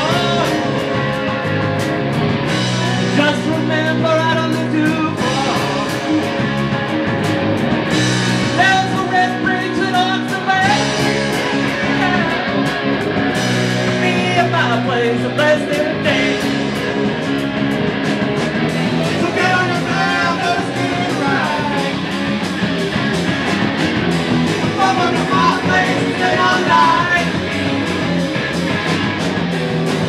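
A live rock band playing: distorted electric guitars and a drum kit, with a voice singing over them.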